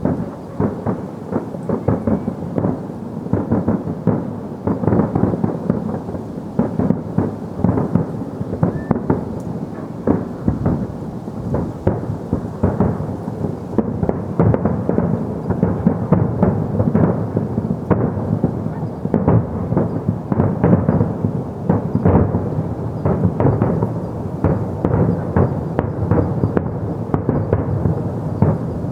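Fireworks going off in a dense, continuous barrage: many overlapping bangs and crackles with no pause, heavy in the low end.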